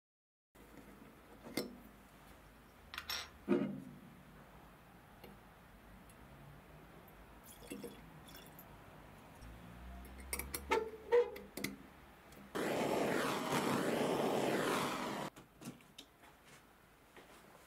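Fuel poured from a glass bottle into the brass spherical tank of a 1930s Norma 51 camping stove: a steady pouring splash lasting about three seconds, the loudest sound here. Scattered clicks and knocks of the bottle and tank being handled come before it, and a few small clicks after.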